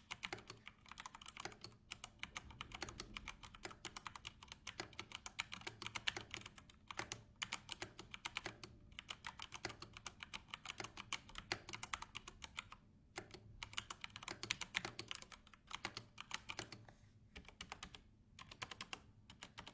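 Typing on a Corsair K100 RGB mechanical keyboard with Cherry MX Speed linear switches: a fast, irregular run of light key clicks with brief pauses now and then, fairly quiet.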